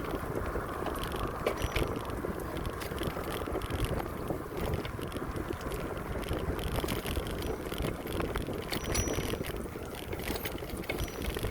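Bicycle riding along a paved path: wind rushing over the microphone and tyre noise, with scattered light rattles and clicks from the bike.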